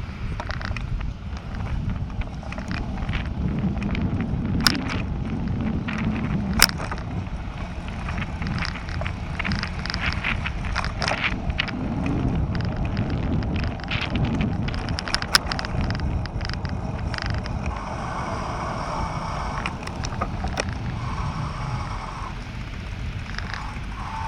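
Bicycle riding over city paving: steady wind rush and rumble on the bike-mounted camera's microphone, with frequent sharp clicks and rattles from the bike.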